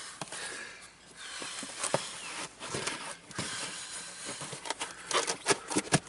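A Smart car's felt-covered footwell floor panel and carpet mat being handled and pressed back into place: rustling and scraping, with several light knocks, a few close together near the end.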